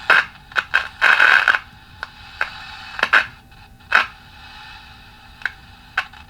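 1954 General Electric C407 tube radio being tuned across the AM band: short, irregular bursts of static and crackle between stations over a steady hiss and faint hum.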